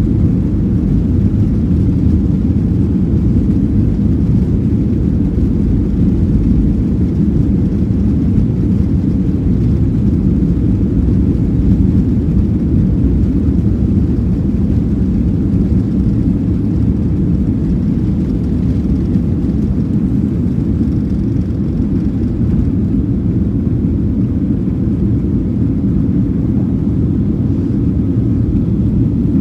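Airplane taking off: a loud, steady low rumble of engines and rushing air, with little high sound in it.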